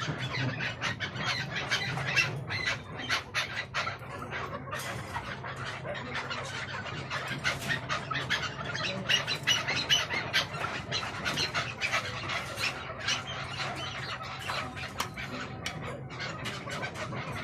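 A flock of white chukar partridges making many short, sharp squawking calls and chatters while they feed.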